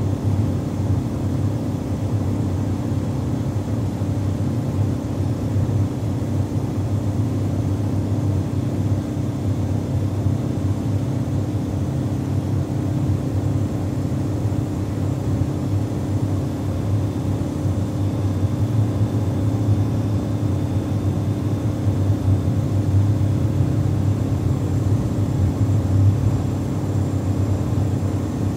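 Cabin sound of a 1980 Ford Fiesta with its 1300cc four-cylinder engine, cruising at a constant motorway speed: a steady low drone.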